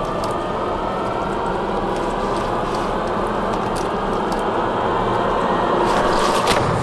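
Dense, noisy drone of horror-film sound design, with a faint gliding tone inside it. It swells slowly in loudness and breaks off near the end.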